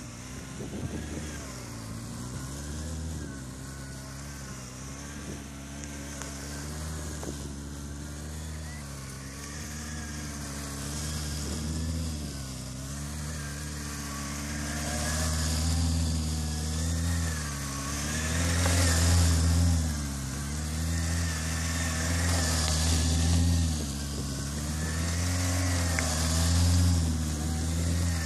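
Kawasaki ZX636 (Ninja ZX-6R 636) inline-four engine running at low speed through slow, tight turns, its revs rising and falling gently over and over. It grows louder through the second half as the bike comes nearer.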